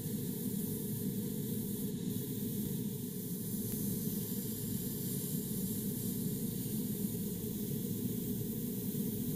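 Airbrush spraying paint: a steady, unbroken hiss of air.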